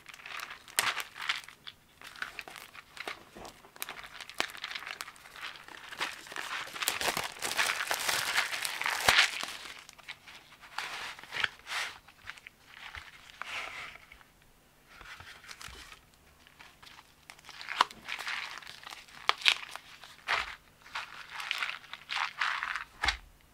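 Cardboard and plastic packaging being handled and opened by hand: rustling, crinkling and scraping with small sharp clicks in irregular bursts. It is busiest around a third of the way in, quieter around two-thirds of the way, then picks up again in a run of sharp crinkles near the end.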